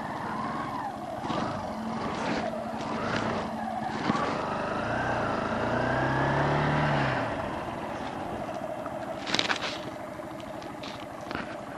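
Kawasaki KLX125's single-cylinder four-stroke engine pulling the bike along, rising in pitch as it accelerates from about four seconds in and easing off after about seven, under steady wind and road noise. A brief clatter about nine and a half seconds in.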